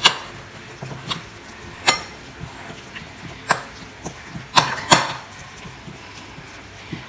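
Metal spoon knocking against a ceramic bowl while stirring a thick sauce: about six sharp clinks at uneven intervals, two of them close together about five seconds in.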